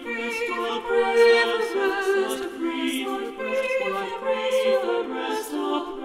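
Small choir of upper voices (two soprano parts and alto) singing an English Renaissance madrigal a cappella, several lines moving in harmony with clear sung consonants.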